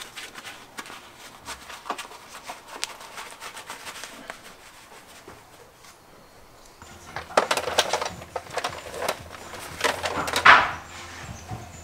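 Light clicks and rustling of work gear being handled, a leather work glove being pulled on and flexed. About seven seconds in these give way to louder rustles and knocks of tools and crates being sorted, over a low hum.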